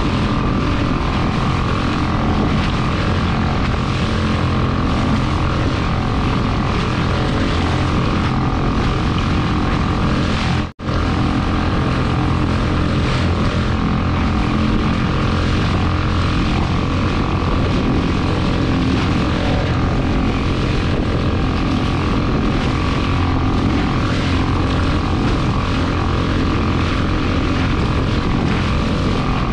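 A steady engine drone with a constant hum, broken by a brief dropout about eleven seconds in.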